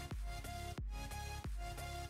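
Background music with a steady beat, about three beats every two seconds, over a heavy bass and a held melody.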